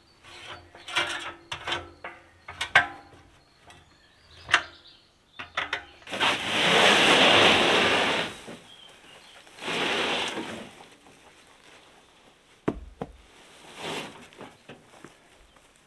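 A few seconds of clicks and metal knocks from a small cement mixer being tilted on its handwheel. Then a heavy sack is dragged across a trailer's wooden floor: a long scraping rush about six seconds in, a shorter one about ten seconds in, and a thud near the end.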